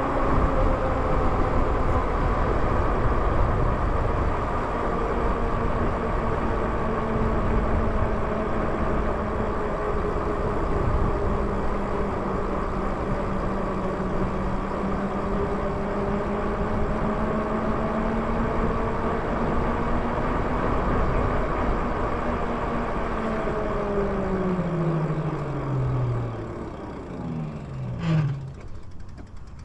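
E-bike rolling along at speed: a steady whirring hum from the wheels over low rushing noise. Over the last few seconds the hum's pitch falls steeply as the bike slows nearly to a stop.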